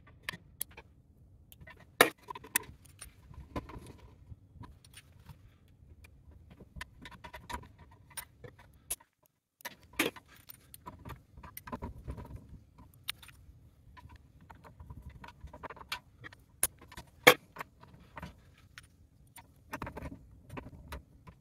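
Wires being handled and worked into the terminals of a metal meter base: irregular rustling with scattered sharp metallic clicks and knocks.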